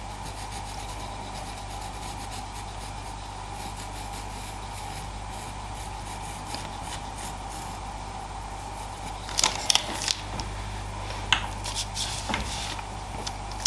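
Pastel pencil scratching faintly on Pastelmat paper as a dog's pupil is darkened with short strokes, over a steady low hum. Several louder sharp clicks and scrapes come about two-thirds of the way through.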